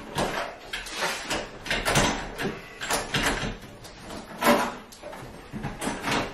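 Irregular clunks, knocks and scraping of a Worcester 25i ERP combi boiler's hydroblock assembly being worked loose and manoeuvred out of the boiler.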